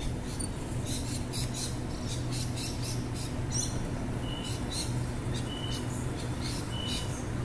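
A stationary double-deck electric passenger train hums steadily at the platform. Small birds chirp irregularly. From about four seconds in, a short high beep repeats roughly every second and a bit while the train's doors open.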